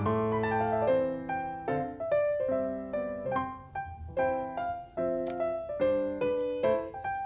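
Background piano music: a gentle melody of single struck notes, each ringing and fading before the next.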